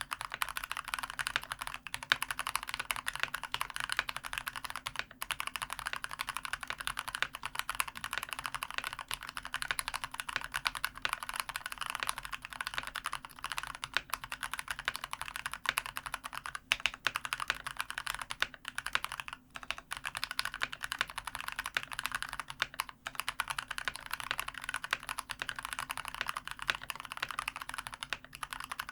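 Fast, continuous typing on a COX CK108 mechanical keyboard with spray-lubricated Gateron Brown tactile switches and sponge dampening, with a brief pause now and then.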